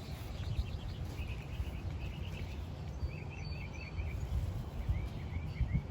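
A bird chirping in quick runs of short, repeated notes, several runs in a row, over a steady low background rumble.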